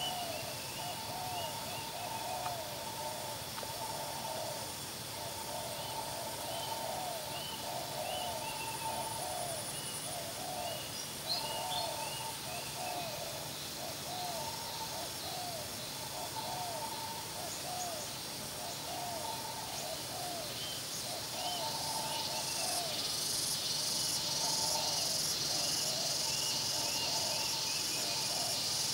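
Spotted doves cooing, a long run of low, repeated coo notes at about one to two a second. Insects hiss behind them, growing louder over the last several seconds.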